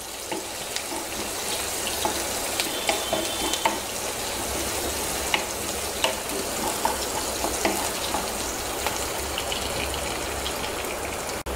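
Chopped small onions, garlic and curry leaves sizzling in hot oil in a nonstick kadai: a steady frying hiss with scattered small crackles and pops as a wooden spatula stirs them. This is the tempering stage, the onions sautéing on a medium flame until they brown.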